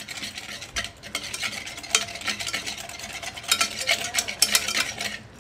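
Gram-flour and curd batter being stirred briskly in a metal bowl, the utensil scraping and clicking rapidly against the metal as the batter is mixed smooth. The stirring gets louder and busier about three and a half seconds in.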